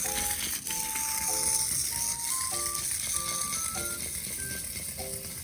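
Battery-powered toy caterpillar (Go Go Tekuteku Imomushi) playing its simple electronic beeping tune, a melody of short clean notes over a lower accompaniment, while its crawling mechanism rattles steadily.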